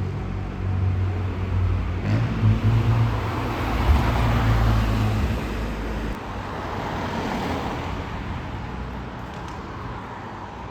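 A motor vehicle passing close by: a low engine hum with road noise that swells about four seconds in, then slowly fades away.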